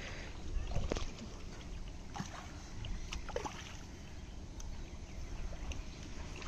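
Outdoor ambience of steady wind noise on the microphone, with light water sloshing in a shallow ditch and a few faint clicks and splashes.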